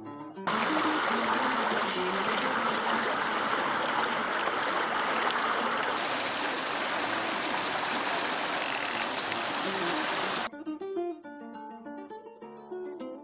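Rushing mountain stream, water tumbling over rocks, starting about half a second in and cutting off suddenly near the end. Acoustic guitar music plays faintly under it and alone before and after.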